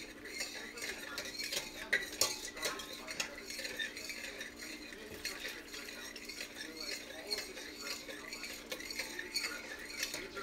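Metal whisk clinking and scraping against the inside of a stainless steel pot in quick irregular ticks, whisking broth into a butter-and-flour roux to thicken it without lumps.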